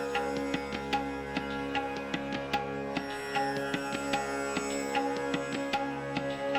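Background instrumental music: steady held tones under a quick, uneven run of short plucked or struck notes.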